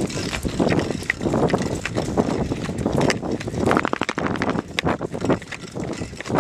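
Footsteps on dry, scrubby ground and the clatter of carried gear while walking, with wind on the microphone. There is a quick run of clicks and knocks a little before the middle.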